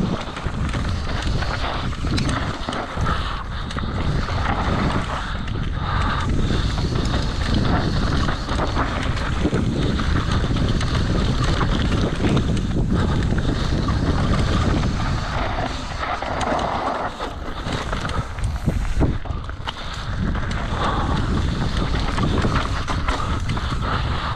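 Wind buffeting the microphone over the rumble of a mountain bike riding down a rough trail, with a few scattered knocks.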